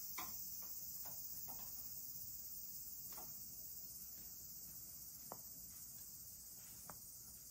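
Faint, steady high-pitched drone of insects singing in the background, with a few soft ticks.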